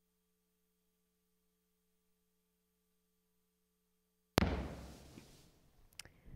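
Near silence with a faint steady hum, then about four seconds in a single sudden heavy thump that dies away over about a second, followed by a light click near the end.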